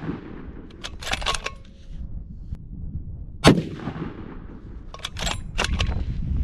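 Ruger Precision Rifle in .300 Winchester Magnum fired once, a single loud shot about three and a half seconds in. Before and after it, the bolt is worked with quick runs of metallic clicks, the second one ejecting the spent case.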